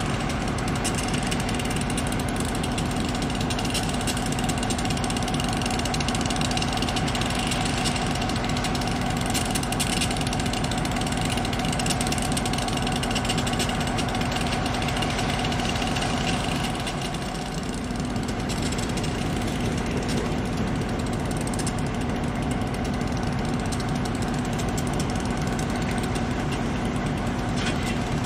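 Diesel locomotive engine running steadily with a fast, even throb and a steady drone, dipping slightly about two-thirds of the way through.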